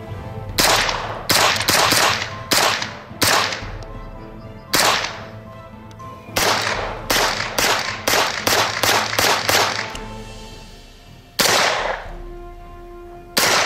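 SIG Sauer MPX 9mm submachine gun firing about sixteen single shots, sharp cracks spaced irregularly, quickening to about two a second in the middle before slowing again.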